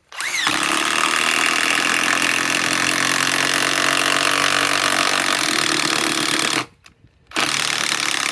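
DeWalt DCF891 mid-torque cordless impact wrench hammering a large lag screw in: a quick rising whine as the motor spins up, then steady hammering for about six and a half seconds, a short stop, and a second run of hammering near the end.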